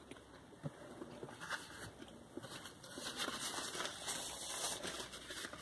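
Quiet chewing with small mouth clicks, then a paper napkin rustling as it is rubbed over the mouth and beard, louder in the second half.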